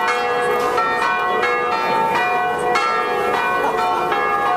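Bells tolling over and over, with a new stroke about every two-thirds of a second, each stroke ringing on under the next.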